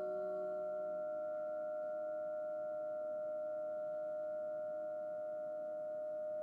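Several sustained, steady ringing tones from sound-healing instruments held together as a drone. A lower pair of tones dies away about a second in, and the higher tones ring on.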